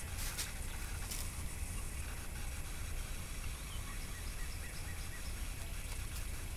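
Rooster giving a quick run of soft, short clucks about four seconds in, over a steady low rumble and a couple of brief rustles in the first second.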